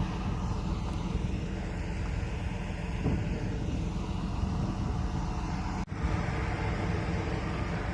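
Diesel engine of a Case 550 articulated tractor running steadily, a constant low drone, with a brief dropout about six seconds in.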